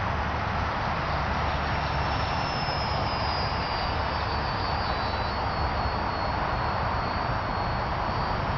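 ParkZone Mosquito radio-controlled model plane flying past, its twin electric motors and propellers giving a steady rushing sound. A faint high whine drops slightly in pitch a few seconds in.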